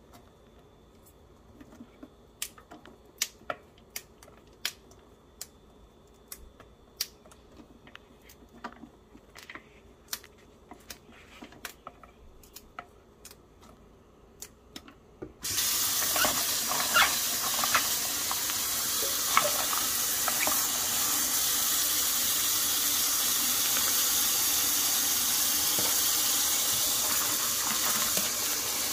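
Scattered light clicks and taps, then about halfway through a kitchen tap is turned on and water runs steadily into the sink, with a few splashes just after it starts.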